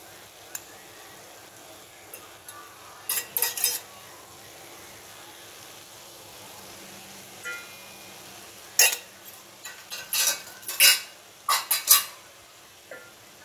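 A spoon stirring prawns in a frying pan, clinking and scraping against the pan in a short burst a few seconds in and again in a longer run near the end, over a faint steady sizzle.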